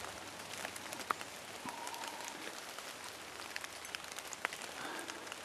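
Steady rain falling, a soft even hiss with many sharp drops ticking irregularly.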